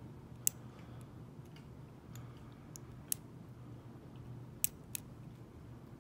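Small metallic clicks and ticks of a lock pick and tension wrench working the pins inside a dimple slider padlock. Sharper clicks come about half a second, three seconds and just under five seconds in, over a faint steady low hum.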